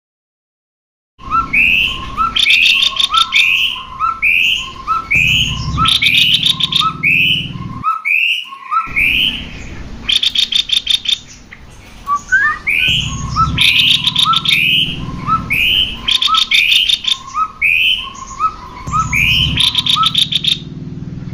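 Cucak kopi birds, male and female, singing loud repeated phrases of rising whistled notes mixed with fast rattling trills. The song starts about a second in and breaks off briefly about eight seconds in, then the same phrases repeat.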